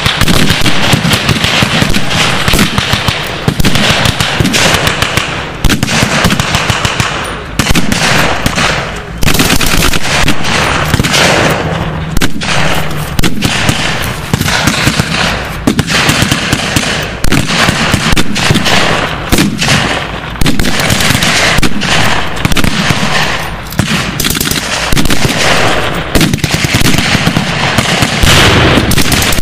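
Battle-reenactment gunfire with blanks: bursts of machine-gun fire mixed with rifle shots, loud, dense and almost continuous.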